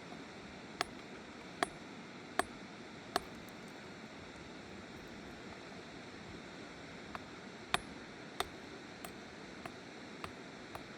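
Sharp clinking taps: four evenly spaced strikes a little under a second apart, then after a pause a looser run of lighter taps, over a steady rushing noise.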